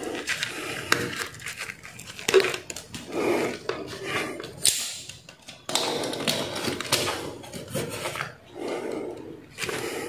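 Handling noise of wiring work at a breaker panel: gloved hands and a hand tool rubbing, scraping and clicking against a stranded copper wire and the panel, with a sharper scrape about five seconds in.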